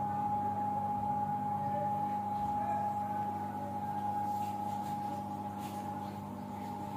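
A steady hum with a constant high tone and a lower tone beneath it, unchanging throughout.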